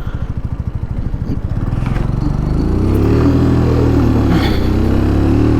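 Keeway Superlight 125cc motorcycle engine at low revs with slow, even pulses, then pulling away. Its pitch rises over a second or so and then holds steady as it rides on.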